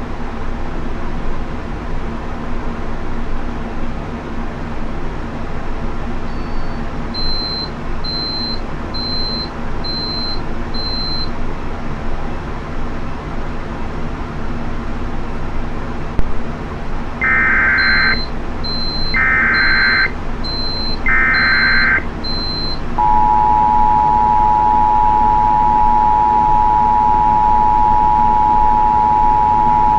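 Emergency Alert System activation over a constant hiss: three short screeching digital data bursts (the SAME header), then the steady two-tone attention signal, held loud for about eight seconds. Two runs of five or six short high beeps come before and during the data bursts.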